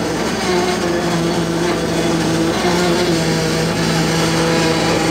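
Fishing boat's engine and deck hauling machinery running with a steady hum while the purse seine is hauled aboard.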